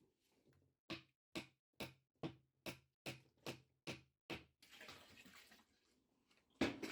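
A run of about eight sharp knocks, a little over two a second, then a brief rushing noise and one louder knock near the end.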